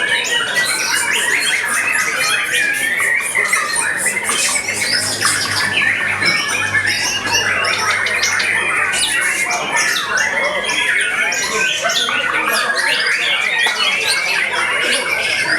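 Caged white-rumped shamas (murai batu) singing, many birds at once, a dense unbroken tangle of fast trills and chirps.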